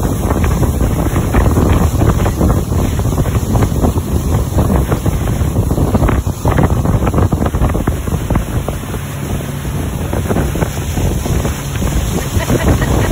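Wind buffeting the microphone of a phone on a motorboat underway at speed, over the steady rush of the boat and its motor.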